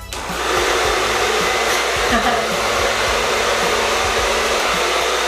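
Soft-bonnet hair dryer switched on just after the start, its air rushing through the hose and inflating the bonnet, then running with a steady even whoosh.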